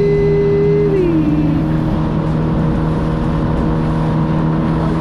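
Boat engine running steadily under way, with wind rumbling on the microphone. A higher tone rises just before the start, holds, and drops away about a second in.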